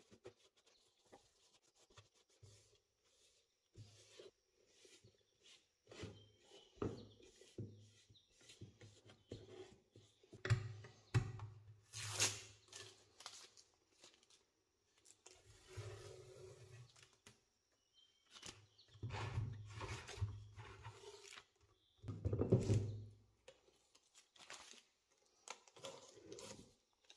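Masking tape being peeled off a wooden speaker cabinet in a series of rasping rips, about a dozen seconds and twenty-two seconds in the loudest, with clicks and knocks as the wooden box is handled.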